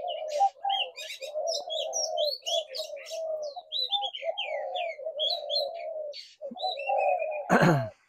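Spotted doves cooing almost without a break, a male in breeding condition, with many small birds chirping high above the coos. A short louder sound with a falling pitch comes near the end.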